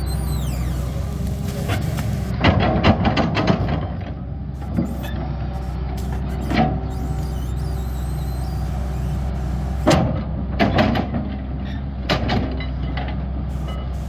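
Caterpillar 320D excavator's diesel engine running steadily at a low drone, broken by several bursts of sharp clanks and knocks from the working machine, the loudest about two and a half seconds in and again about two-thirds of the way through.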